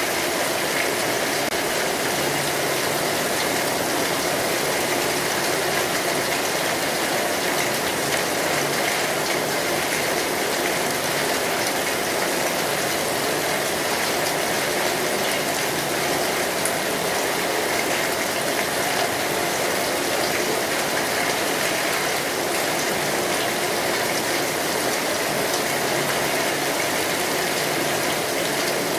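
Steady rain falling on a street, an even unbroken hiss that holds the same level throughout.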